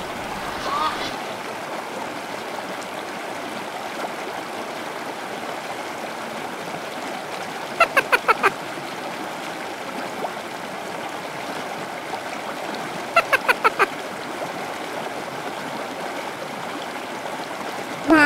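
Steady rush of water, with two short runs of four or five quick pitched calls from a bird about 8 and 13 seconds in, and another call right at the end.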